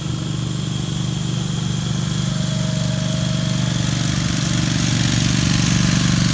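Engine of a Toro ride-on triplex greens mower running steadily as it drives across a putting green with its verticutting reels down. The sound is loud and steady and grows slightly louder toward the end.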